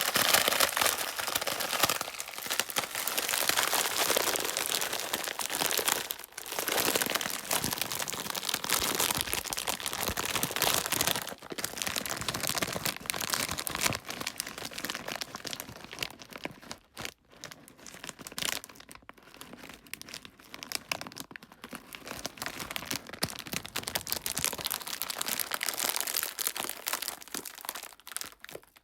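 Plastic packaging crinkling and rustling, worked in long swells and fades to imitate an ocean drum's surf-like wash.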